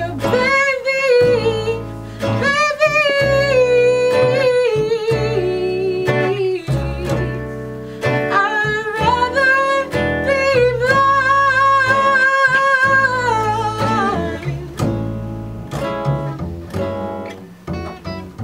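A woman sings long, held notes with a wavering pitch over a fingerpicked acoustic guitar and an upright double bass, playing a slow soul ballad. About two-thirds of the way through the voice stops and the guitar and bass carry on alone.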